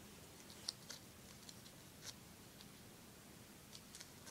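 Near silence with a few faint crinkles and ticks of duct tape being handled and folded over a paper luggage tag by hand.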